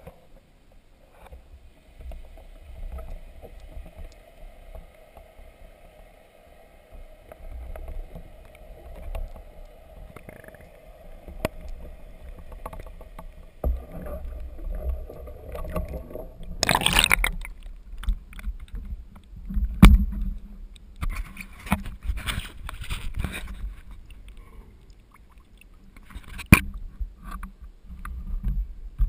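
Water heard by a camera on a small boat as it passes from underwater to the surface: first a faint steady hum and muffled rumble under the water, then a loud splash about 17 seconds in, followed by water sloshing and splashing against the camera with a couple of sharp knocks.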